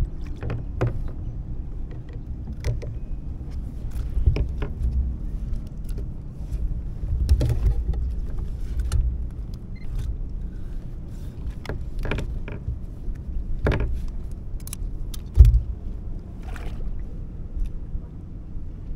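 Scattered clicks and knocks of fishing tackle being handled in a plastic kayak, over a steady low rumble, with one louder thump about fifteen seconds in.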